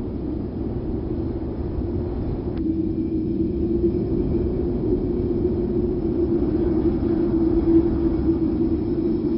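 Wind sound effect: a steady low rush and rumble of wind with a low, even tone running through it.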